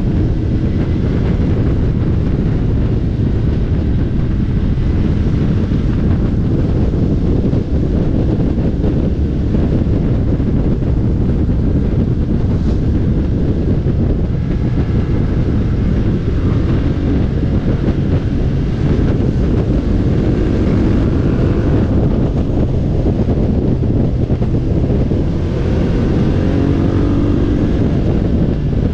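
Motorcycle riding at speed, heard through a bike-mounted camera microphone: steady wind noise over the microphone covers the engine, whose pitch rises several times in the second half as the bike accelerates.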